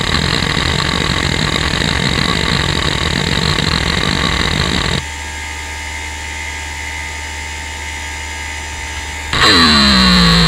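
Western Digital Caviar 31200 hard drive heads seeking rapidly in a dense, rattling chatter, which stops about five seconds in and leaves only the steady hum of the spinning platters. Near the end a loud seek test starts: a buzzing drone whose pitch falls.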